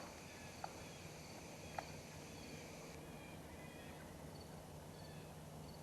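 Quiet outdoor ambience with faint, distant bird chirps and a few soft clicks.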